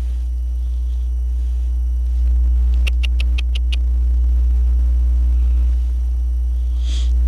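A steady low rumble, with a quick run of about six light clicks about three seconds in and a brief hiss near the end.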